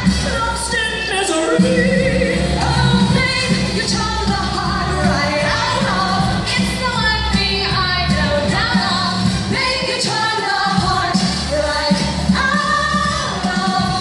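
Singing over a band's instrumental backing with a steady bass line.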